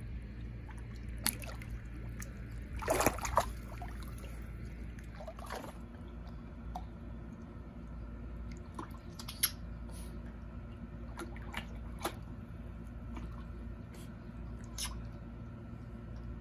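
A small dog wading in a shallow plastic kiddie pool, water sloshing and splashing in short irregular splashes as it goes after a floating ball, loudest about three seconds in. A steady low hum runs underneath.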